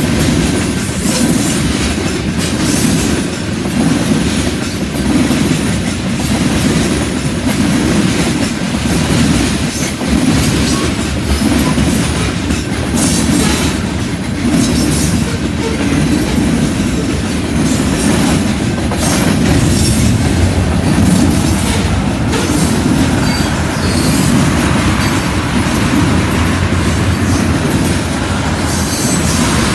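Freight cars of a long mixed freight train rolling steadily past: loud rumble of steel wheels on rail, with a continuous clickety-clack of wheels over the track and faint wheel squeal.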